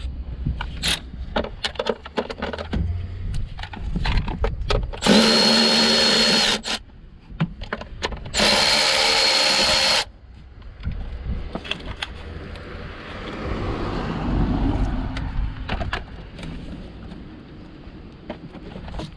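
A cordless power tool run twice on a bolt, about five and about eight seconds in, each run lasting about a second and a half with a steady high whine. Around the runs are light clicks and clinks of tools and parts being handled.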